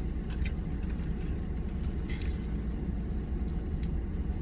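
Steady low rumble with a few faint crunching clicks from chewing crisply fried chicken wings.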